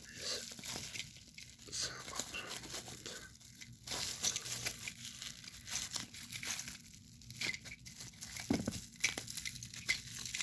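Toy packaging being torn open and crinkled by hand, in irregular rips and rustles.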